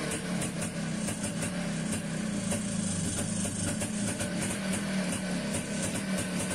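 IZh Planeta motorcycle's single-cylinder two-stroke engine, with bored-out cylinder ports, running steadily.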